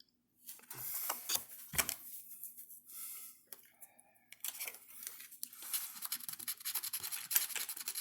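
Scratch-off lottery ticket being scratched: quick, irregular rasping strokes across the ticket's coating, with a few separate scrapes and a light thump early on, a brief pause about four seconds in, then steady scratching.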